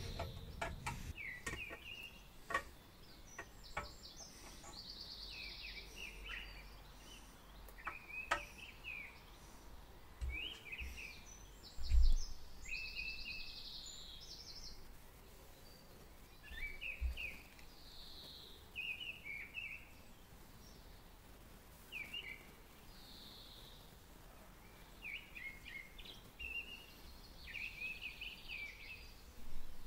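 Small birds chirping and singing in the background, many short varied calls. A few light clicks sound near the start, and a dull knock about twelve seconds in is the loudest sound.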